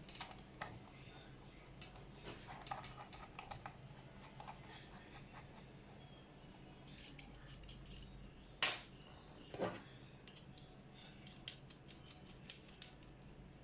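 Small hand tool cutting and working plastic model-kit parts: light clicks and scrapes, with two sharper snaps about a second apart just past the middle.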